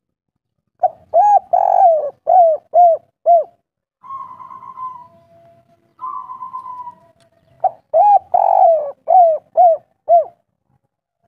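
Spotted dove cooing: two loud phrases of six short, arched coos each, the third coo of each phrase longer. Between the phrases come two softer, rough rattling notes.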